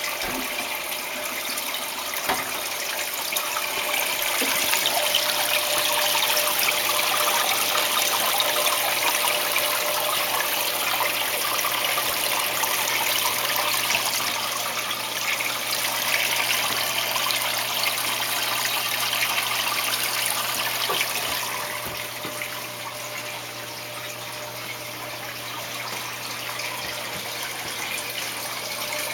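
Aquarium water running and splashing in a steady rush, as from the tank's filter return, over a faint low hum. It swells a few seconds in and eases off about two-thirds of the way through.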